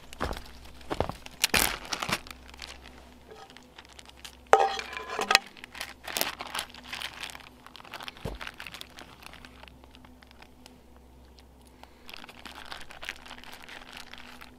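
Crinkling and rustling handling noises with scattered sharp clicks, loudest in a few bursts in the first half, then quieter.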